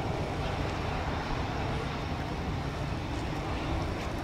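Airbus A320's jet engines running steadily at low taxi power as the airliner rolls slowly along the taxiway.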